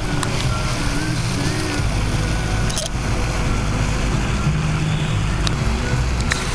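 Outdoor ornamental fountain splashing: a steady rushing of falling water with a low rumble underneath and a few faint clicks.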